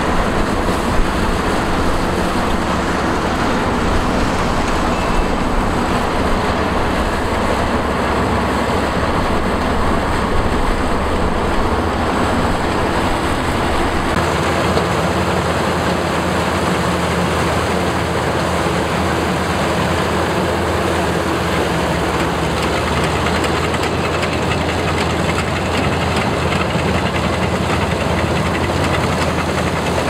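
Small Cheetah rice combine harvester running as it cuts and threshes rice: a loud, steady engine and machinery drone. The low engine note changes about halfway through.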